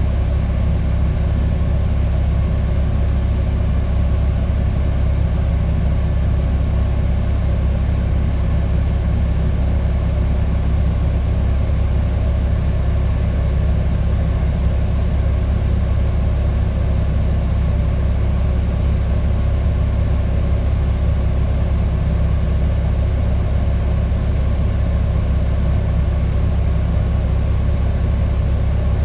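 Volvo B10TL double-decker bus's diesel engine idling steadily while the bus stands still, a deep even rumble heard from inside the passenger cabin.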